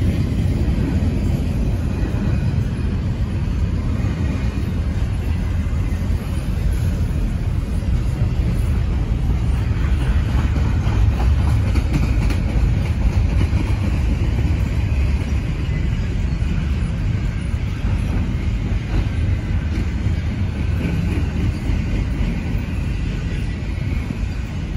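Canadian Pacific intermodal freight train of double-stacked container cars rolling past, a steady rumble of wheels on the rails.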